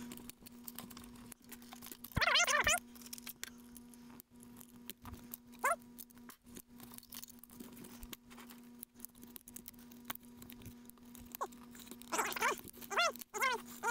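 Small clicks and rustles of fingers working the cab-light bulbs and wires inside a plastic toy-train locomotive shell, over a faint steady hum. A short wavering whine-like vocal sound comes about two seconds in and again near the end.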